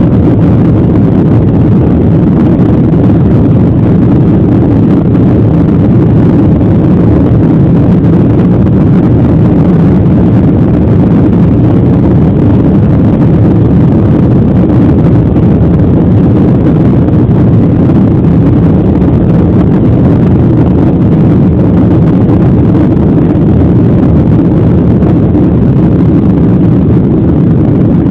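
Jet airliner cabin noise during the climb after takeoff: a loud, steady low rumble of engines and rushing air, unchanging throughout.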